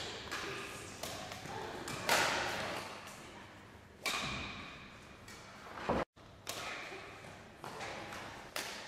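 Badminton rackets striking a shuttlecock in a rally at the net: sharp hits, the loudest about every two seconds, with lighter taps and steps between, echoing in a large hall. The sound cuts out for an instant about six seconds in.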